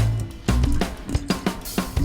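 Background music with a drum kit beat and bass, with a cymbal crash near the end.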